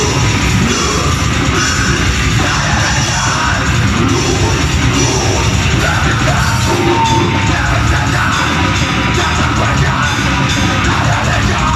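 Live heavy metal band playing: distorted guitar and drums, with the vocalist yelling over them.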